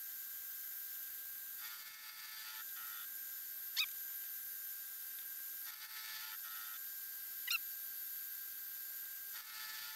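Milling machine taking a cut on a steel nut blank: a steady high whine with short bursts of high-pitched ringing about every four seconds, each followed by a brief sharp squeak.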